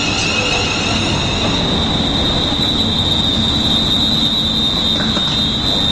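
Train running on the rails: a steady rumbling noise with a sustained high whine throughout.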